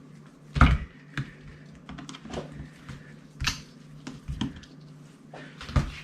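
Irregular clicks and light knocks of a screwdriver and a hammer being handled while the grip screw is worked out. The loudest knock comes about half a second in, with smaller ones scattered after it.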